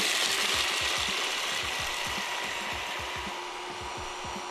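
Electric hand blender with a chopper bowl running continuously, chopping green pistachios and sunflower oil into pistachio paste. Its steady motor and chopping noise gradually grows quieter.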